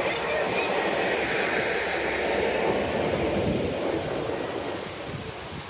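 A passing train receding: the rumble of its coaches' wheels on the rails and its tail-end diesel locomotive dying away gradually.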